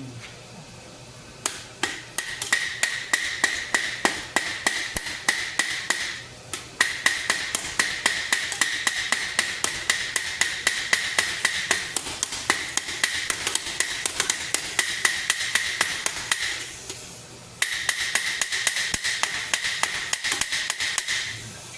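A hammer peening a steel rivet on a riveted helmet, with rapid, even blows at several a second. The blows come in three long runs with short breaks between them, and the helmet plate rings steadily while they go on.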